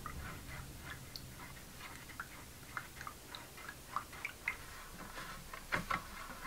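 Paintbrush dabbing and stroking a soaked fish-scale pattern sheet in a shallow plastic tray of water, making small, irregular wet clicks and ticks. A louder cluster of clicks comes near the end as gloved fingers press on the sheet.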